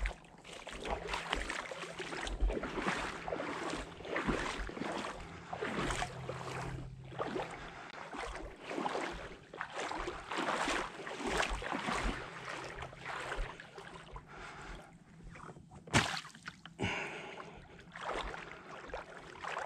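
Irregular rushing, splashy noise of water and wind that swells and fades, over a faint steady low hum, with a single sharp click about three-quarters of the way through.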